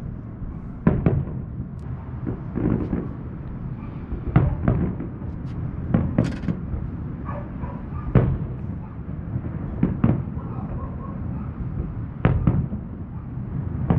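Aerial fireworks shells bursting: about a dozen booms, several in quick pairs, each with a short rolling echo, over a low steady rumble.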